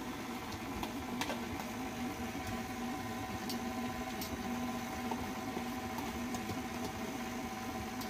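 Electric stand mixer running steadily, beating butter and sugar, with a few faint clicks as a spoon scrapes egg yolk from a plastic bowl.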